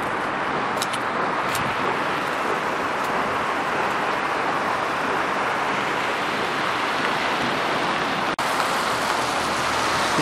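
Steady outdoor background hiss, even and unbroken, with a momentary dropout a little past eight seconds in.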